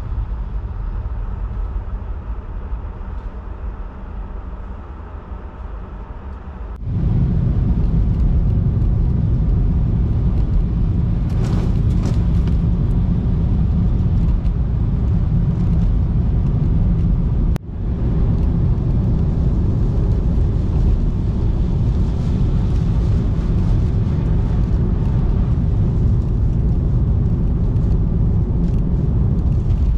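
Tesla Model 3 driving on a snowy road: a steady low rumble of tyre and wind noise with no engine note. It gets suddenly much louder about seven seconds in, with a brief drop a little past halfway.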